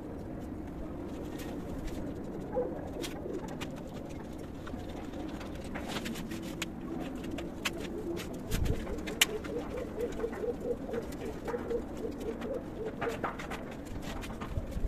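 Domestic pigeons cooing in the loft, with a longer run of repeated coos in the second half. Scattered sharp knocks and clicks of wood being handled as a wooden nest box is pulled apart.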